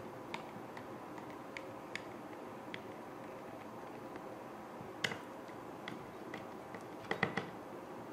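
Light clicks and ticks of a Phillips screwdriver turning out the small external screws of a handheld gas detector's plastic housing, with a sharper click about five seconds in and a quick cluster of clicks near the end.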